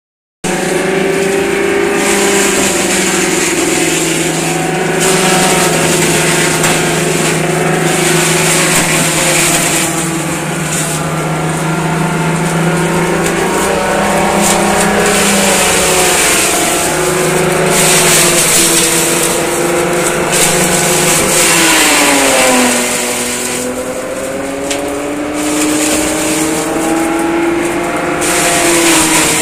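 An engine running steadily at a fairly constant speed. About 22 seconds in its pitch drops sharply, then slowly climbs back up.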